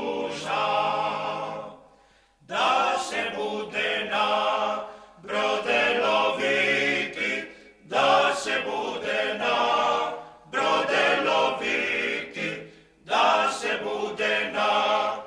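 A cappella choir singing background music in sustained phrases of about two to three seconds, each followed by a short breath-like break.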